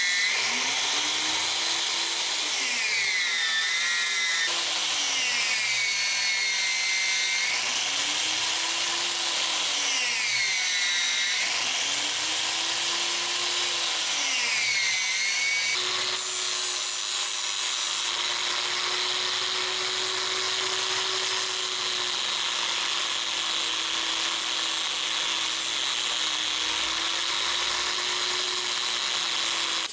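Bench-mounted angle grinder with a sanding disc running, a small part held against it by hand; the motor whine sags in pitch each time the piece is pressed in and recovers as it is eased off, about four times, then holds nearly steady for the second half.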